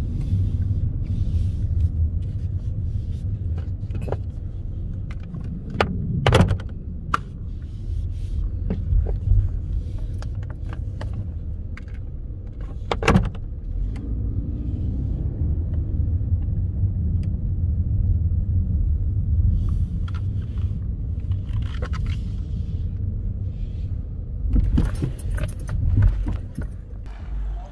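Car cabin sound while driving slowly: a steady low rumble from the engine and tyres, broken by scattered clicks and knocks. Near the end come a few sharper rattles and knocks.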